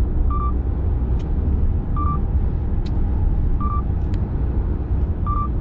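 Steady low road and engine rumble inside a moving car's cabin. A short electronic warning beep from the car repeats at an even pace, about every second and a half.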